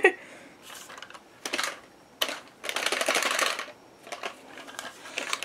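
Rapid plastic clicking and rattling of a toy Kylo Ren lightsaber being worked by hand, in several short bursts, the longest lasting about a second near the middle.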